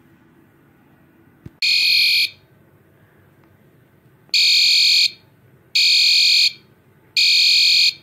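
System Sensor SpectrAlert Advance P2R fire alarm horn sounding in blasts of about three-quarters of a second each. One blast is followed by a pause of about two seconds, then three blasts in a row, the temporal-three evacuation pattern.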